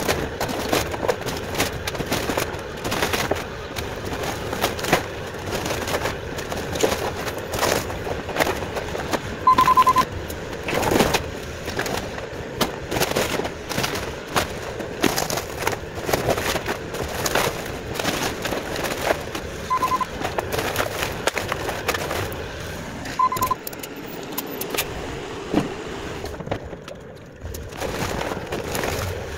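Bobcat compact excavator breaking up and sorting garage demolition debris: repeated cracking, snapping and clattering of wood and scrap over the machine's running. Three short electronic beeps sound about ten, twenty and twenty-three seconds in.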